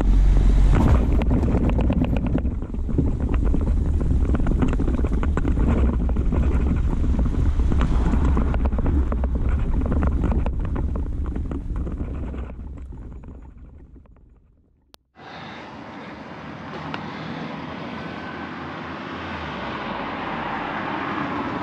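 Small boat's engine running under way at speed, with wind buffeting the microphone; the sound fades out about two-thirds of the way through. After a brief gap, a quieter steady wind noise follows.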